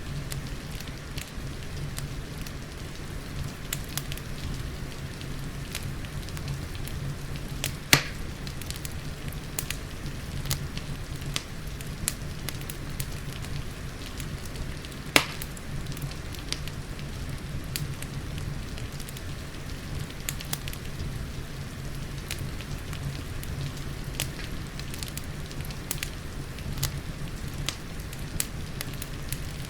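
Wood fire crackling with many small snaps and two louder sharp pops, about eight and fifteen seconds in, over a steady patter of rain.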